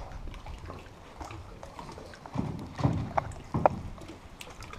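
Water slapping and sloshing against a canoe hull and the rock walls of a small cave, with a few hollow knocks about halfway through.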